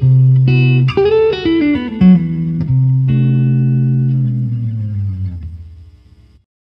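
Instrumental background music with plucked guitar and bass: a few picked notes and a short falling run, then a held chord that fades out about six seconds in.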